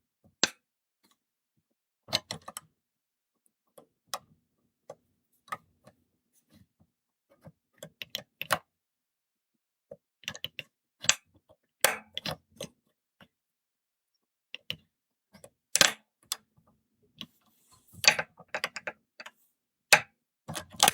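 Metal clicks and ticks from a 2-in-1 lever-lock pick working the levers of an Ace 910-8186 four-lever padlock, coming singly and in irregular small clusters. Near the end the lock opens.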